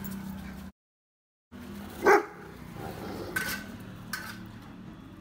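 A Rottweiler barks once, a single short loud bark about two seconds in, followed by a couple of fainter, sharper clicks or yips.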